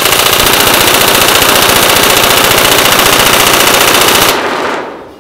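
Tokyo Marui 417 electric blowback airsoft rifle firing one long full-auto burst, a fast, even clacking rattle of the motor and recoil-shock blowback bolt. It stops about four seconds in and fades over about a second.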